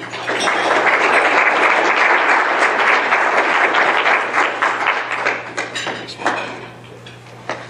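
Audience applauding. The applause is loud for about five seconds, then dies away to a few scattered claps near the end.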